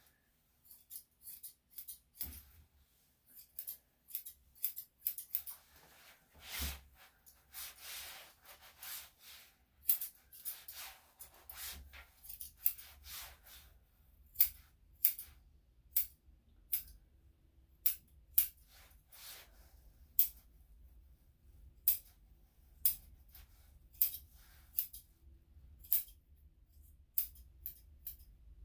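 Grooming scissors snipping through a dog's long fur as the leg and foot are trimmed. The snips come in quick runs at first, then as single sharp snips about a second apart.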